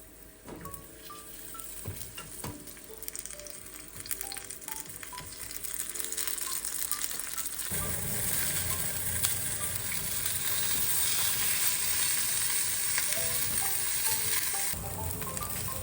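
Food sizzling in a frying pan: the hiss builds and grows louder about halfway through, then eases a little near the end. Soft background music plays under it.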